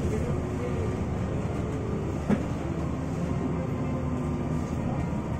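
Cabin noise inside a moving electric city bus: a steady low rumble of tyres on the road with a faint whine from the electric drive, and a single sharp knock about two seconds in.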